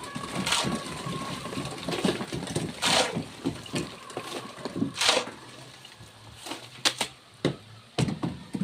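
Irregular scraping and knocking of manual construction work. There are three longer rasping scrapes in the first half and a cluster of sharp knocks near the end.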